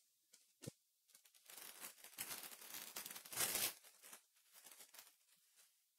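Foil wrapper of a Topps Chrome basketball card pack being torn open and crinkled by hand, faint, with the loudest rip about three and a half seconds in.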